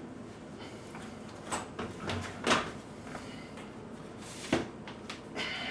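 A few scattered light knocks and clicks, about five over several seconds, over low kitchen room noise.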